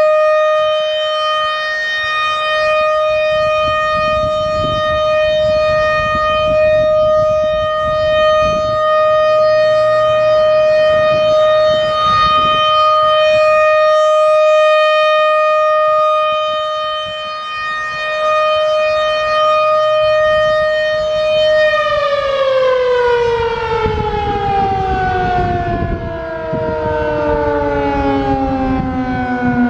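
American Signal RM-130 rotating mechanical outdoor warning siren sounding its steady alert tone, swelling slightly in loudness as it rotates. About two-thirds of the way through it begins winding down, the pitch gliding steadily lower as the 3-minute alert ends, with a fainter second siren tone also falling near the end.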